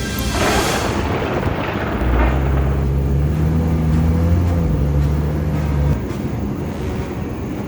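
Foley sound effects: a short whoosh, then a low, steady, vehicle-like rumble with a hum that lasts about four seconds and cuts off sharply.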